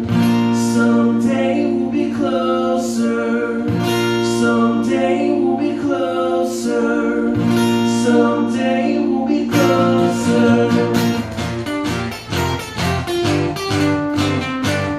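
Acoustic guitar strummed through an instrumental passage of a reggae-rock song, with chords ringing under regular strokes. About ten seconds in, the strumming turns to a quicker, choppier rhythm.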